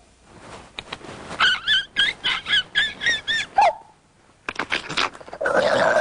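Vocal sound effects made with the mouth: a quick run of about eight short pitched chirps, then, after a brief pause, a rough, hissing, noisy stretch.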